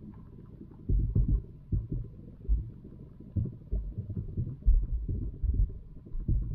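Muffled, irregular low thumps and rumbling heard through a camera submerged in a pond, with the bumps coming more thickly in the second half.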